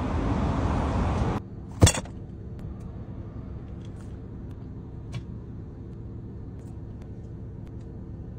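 Loud street noise, cut off abruptly after about a second and a half by the steady low hum of a car's interior with the engine running. A single sharp knock comes about two seconds in, then faint clicks and rustles as hands pull apart a roast chicken in a plastic takeout tray.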